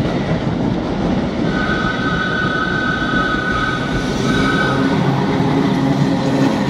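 Vintage wooden railway carriages rolling past close by, a steady rumble of wheels on rail. From about a second and a half in to nearly five seconds, a steady two-pitched squeal rides over the rumble.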